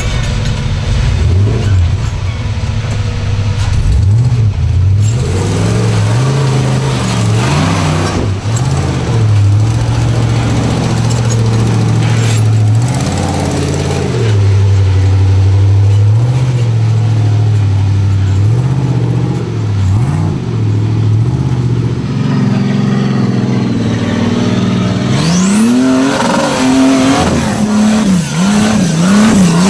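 Rock crawler engine revving up and down in repeated bursts as it climbs a rocky ledge under load. About 25 seconds in, a higher-pitched engine takes over, blipping rapidly.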